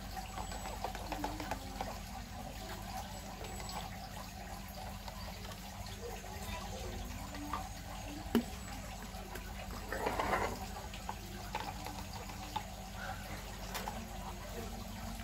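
Silver paint mixed with clear coat being stirred in a plastic cup with a metal ruler: faint liquid stirring and scraping over a steady low hum, with a sharp click about eight seconds in and a brief louder rustle around ten seconds.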